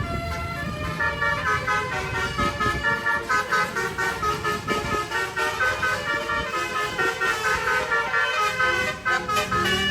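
Bus telolet horn, a 12-note, 24-trumpet stereo air horn, playing a fast tune of short notes that step up and down in pitch, over the rumble of the bus.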